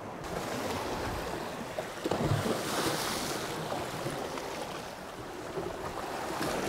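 Sea waves washing against the rocks of a jetty, a steady rushing noise, with wind buffeting the microphone.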